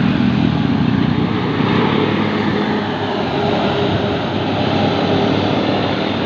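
Diesel engine of a large intercity bus running steadily as the bus passes close by.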